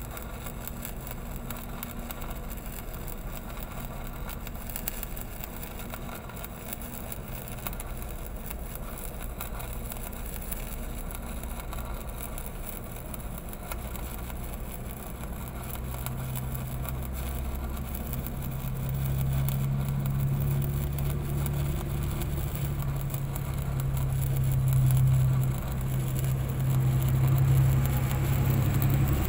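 Arc welding on a large steel pipe: a steady crackling hiss from the arc. Under it an engine runs steadily, growing louder about halfway through.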